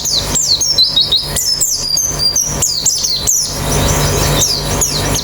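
A group of white-eyes (pleci) singing and chattering together: rapid, overlapping, high chirps that sweep downward, with no pause. A steady low hum runs underneath.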